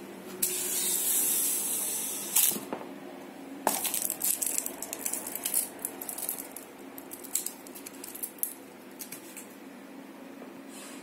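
A sweet in a crinkly twist wrapper being batted about by a cat on a hard floor: a hissing rustle of the wrapper for about two seconds, a sharp click, then a run of irregular crackles and clicks that die away about two-thirds of the way through.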